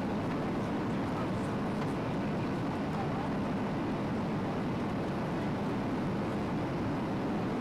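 Steady cabin noise inside a Ryanair Boeing 737-800 on approach: the low drone of its CFM56-7B turbofan engines mixed with the rush of air over the fuselage, even and unchanging.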